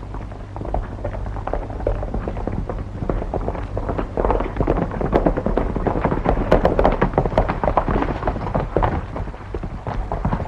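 Hoofbeats of several galloping horses on dry ground, a dense irregular clatter that grows busier in the middle, over the steady low hum of an old film soundtrack.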